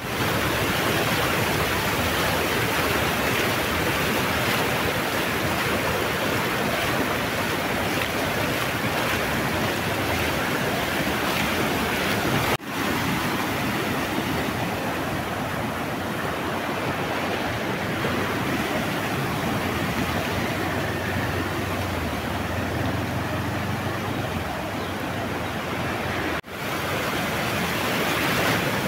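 Fast floodwater rushing across a paved road, a steady rushing noise, briefly cut off twice at edits, about halfway and near the end.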